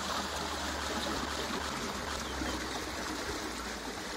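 Water running steadily along a levada, a Madeiran irrigation channel: an even, continuous rush of flowing water.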